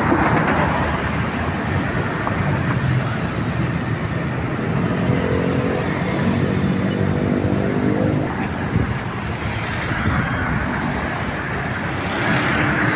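Road traffic passing steadily on a toll road, with one vehicle's engine note rising slightly from about five seconds in to about eight seconds in.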